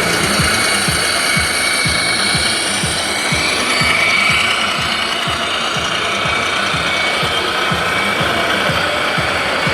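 Scale RC construction models running: a rapid, slightly uneven low knocking, about four a second, over a steady mechanical whir.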